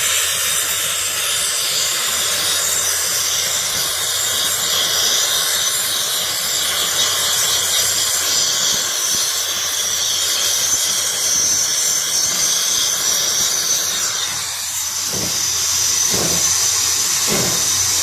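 Brazing torch flame hissing steadily as it heats a brazed copper refrigerant line joint beside a heat pump's expansion valve.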